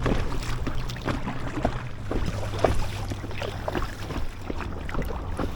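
Small waves slapping and splashing irregularly against the hull of an inflatable kayak, with a low steady hum underneath.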